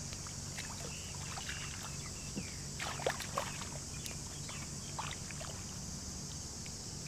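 Hands groping and splashing in shallow muddy water, a scatter of short small splashes, over a steady high hiss.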